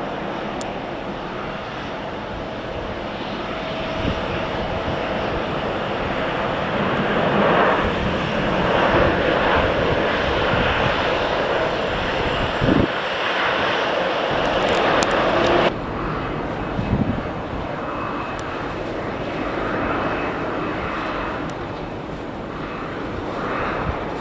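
Airliner engines roaring as an aircraft passes, swelling to a peak through the middle and then cutting off abruptly a little past halfway. Strong wind buffets the microphone throughout.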